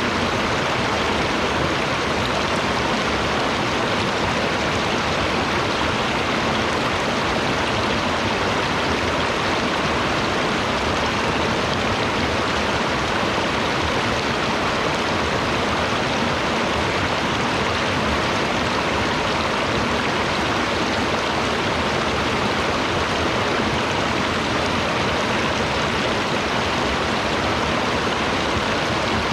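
Stream running: a steady, unbroken rush of water.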